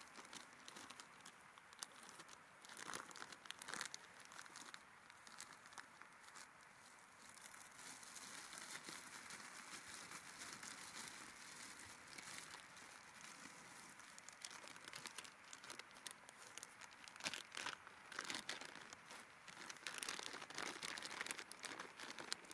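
Faint, irregular rustling and crinkling, with louder bouts about three seconds in and again near the end.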